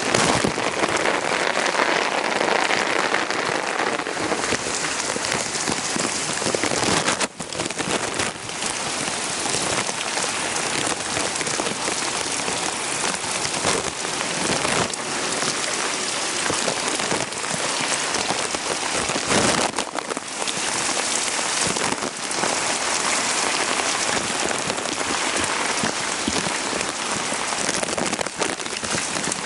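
Heavy rain falling steadily during a thunderstorm, a dense even hiss of drops on surfaces.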